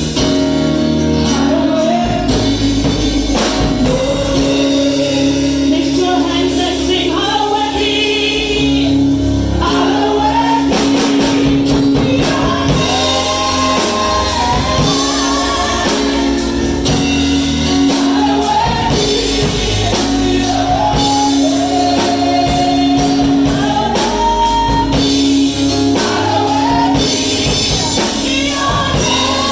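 Gospel worship song: voices singing a melody over sustained accompaniment with a steady beat.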